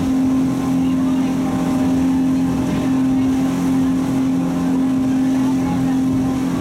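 Speedboat engine running at a steady cruising drone, one unchanging pitch, over a constant rush of water and wind as the hull crosses the chop.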